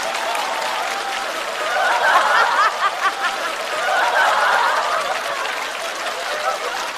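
Studio audience laughing, mixed with clapping, swelling about two seconds in and again around four seconds in response to a stand-up punchline.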